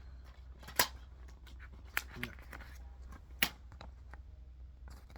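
Three sharp clicks and light rustling as a plastic DVD keep case and its paper inserts are handled.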